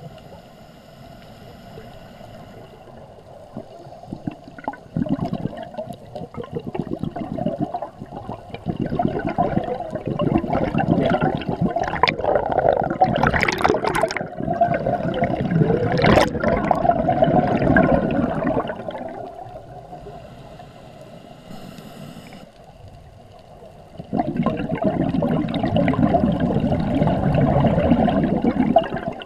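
A scuba diver's regulator exhaust bubbling underwater as the diver breathes out. It is two long spells of bubbling: one builds from about four seconds in and dies away after the middle, and the other starts again near the end, with quieter stretches between them.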